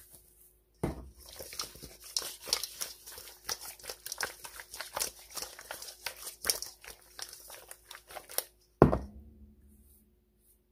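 Raw seasoned quail pieces tossed and shaken in a stainless steel mixing bowl: a quick, irregular run of wet slaps and rattles against the metal for about eight seconds. Near the end comes one loud knock of the bowl, which rings briefly.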